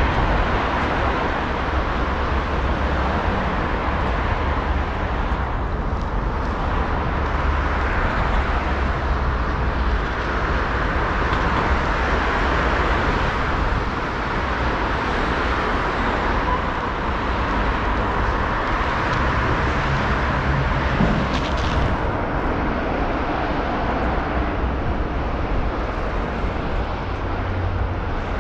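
Steady city traffic noise: cars driving along a multi-lane road below, a continuous rumble of engines and tyres.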